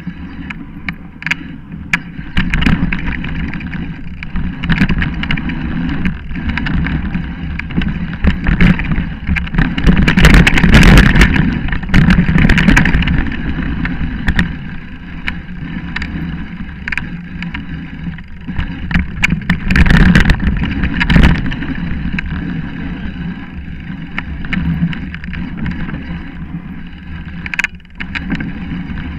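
Mountain bike riding down a dirt forest trail, heard from a camera mounted on the bike: tyres rolling over leaf litter and roots with frequent rattles and knocks from the bike. It gets louder and rougher about ten seconds in and again around twenty seconds.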